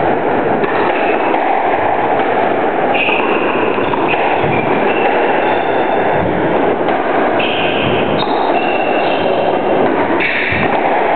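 Steady loud rushing noise, with several short high squeaks of squash shoes on the wooden court floor scattered through it.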